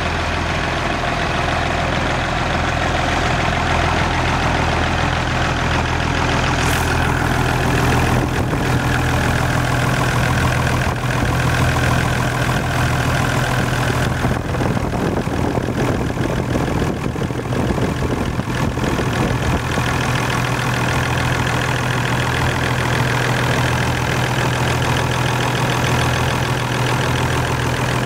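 Engine of the drilling outfit running steadily, a constant low hum with no change in speed.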